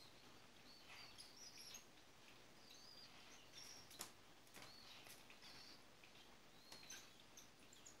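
Faint, high cheeping of cockatiel chicks begging while an adult cockatiel feeds them: short rising-and-falling chirps every second or so, with a sharp click about four seconds in.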